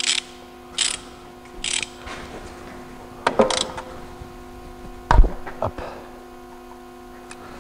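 Ratchet wrench being worked in three quick strokes, then a few metallic clicks and a dull thump about five seconds in.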